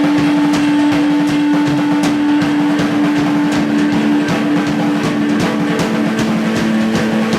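Live band music: a strong sustained low note is held, then steps down to a lower held note about five seconds in, over a steady drum-kit beat.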